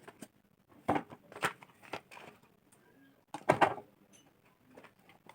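Handling noises from unboxing a boxed WiFi modem: a few sharp knocks and short rustles of cardboard and plastic packaging, the loudest cluster about three and a half seconds in.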